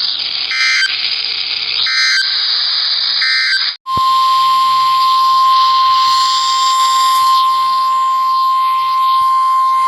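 NOAA Weather Radio alert signal: three short screeching SAME digital header bursts about 1.3 seconds apart, then, after a brief dropout about four seconds in, the steady single-pitch 1050 Hz warning alarm tone over radio hiss. It announces that a new warning is about to be read.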